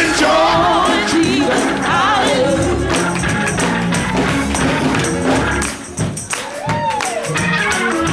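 Live gospel music with a shaken tambourine keeping a steady beat under singing voices, and a man singing into a handheld microphone.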